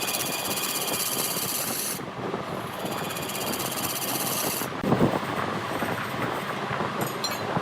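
Large wood lathe turning a redwood log, with a cutting tool scraping the spinning wood in a steady hiss that breaks off about two seconds in and again near five seconds, where a single heavy knock sounds.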